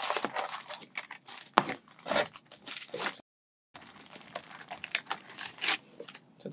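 Foil Pokémon TCG booster packs crinkling and rustling as they are handled and lifted out of their cardboard box, with one sharp knock about a second and a half in. The sound cuts out completely for half a second just past the middle.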